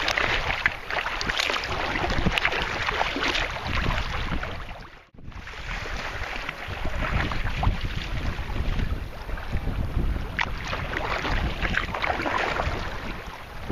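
Wind buffeting the microphone over choppy lake water, with small waves and paddle strokes splashing against a sea kayak's hull. The sound cuts out briefly about five seconds in, then carries on.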